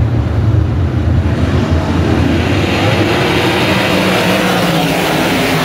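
A pack of winged sprint cars' V8 engines running at racing speed on a dirt oval. A low, distant rumble grows louder and harsher as the field closes in and passes close by, about three to four seconds in.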